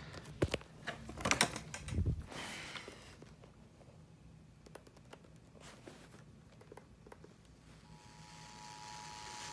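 Scattered sharp clicks, like keys being typed, over the first few seconds, then quiet. About eight seconds in, the steady two-tone EAS attention signal fades in faintly over FM radio hiss and grows louder.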